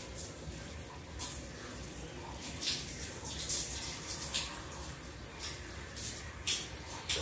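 Hands squeezing and working long, wet hair: irregular wet squishes and splashes, one every half second to a second, over a low steady background noise.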